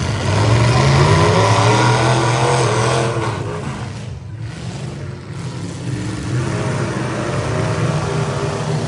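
Demolition derby truck engines revving in the arena, the pitch climbing and falling. They are loudest over the first three seconds, ease off around four to five seconds in, then run on steadily.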